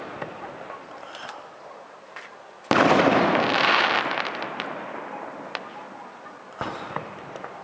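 Aerial firework shells bursting in the sky: a loud bang about three seconds in that dies away over a couple of seconds with crackling, and a weaker bang near the end.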